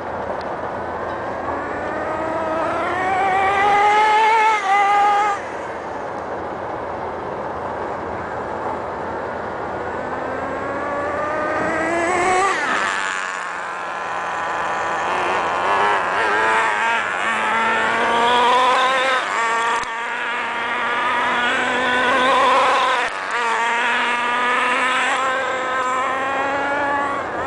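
HPI MT2 nitro RC monster truck's small two-stroke glow engine screaming at high revs, its whine rising as it accelerates and dropping as the throttle eases, over and over. About halfway through, the pitch sweeps up and then falls as the truck passes close by.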